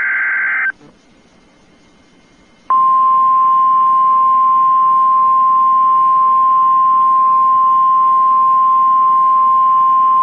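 Emergency Alert System activation for a severe thunderstorm warning. The last SAME header data burst, a brief buzzing digital squawk, ends under a second in. After about two seconds of faint hiss, the steady single-pitch 1050 Hz NOAA Weather Radio warning alert tone starts and holds.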